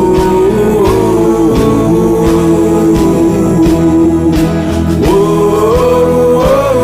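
A rock-style song with a steady drum beat under a held, sliding melody line, in an instrumental break between sung lines.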